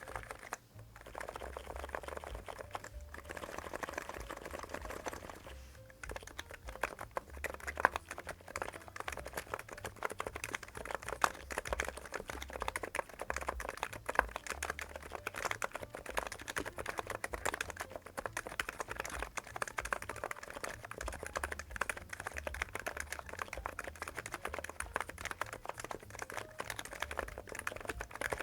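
Fast, continuous typing on a NIZ X99 electro-capacitive keyboard with PBT keycaps: a dense run of keystrokes, with short breaks about half a second, three and six seconds in.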